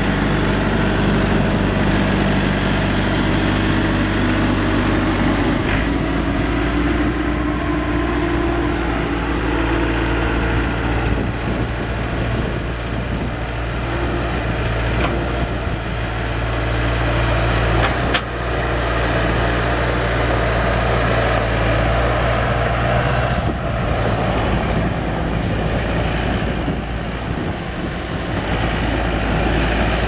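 Bobcat S250 skid steer loader's turbo diesel engine running: steady at first, then the note changes about five seconds in and runs less evenly as the loader drives and raises its bucket, with a sharp click about eighteen seconds in.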